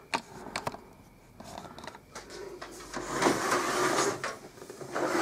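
Handling noise: a couple of small knocks, then a longer scraping and rustling as things are moved about by hand.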